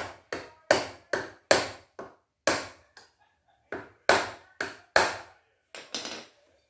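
A small hammer tapping repeatedly on a seized embroidery-machine part to knock it free, about a dozen sharp knocks at roughly two a second with a short pause about three seconds in. The part is jammed by old thread wound tightly into it.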